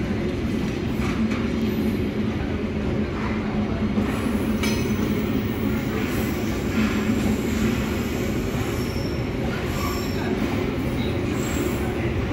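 Passenger train coaches rolling past on the rails, a steady rumble of wheels on track. Faint high wheel squeals come in during the second half.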